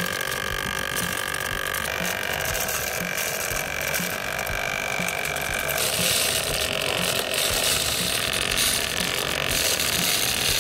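Small electric gear motor of a homemade model rice-sowing tractor running as the toy drives over soil sowing seed, with a louder hiss coming in about six seconds in.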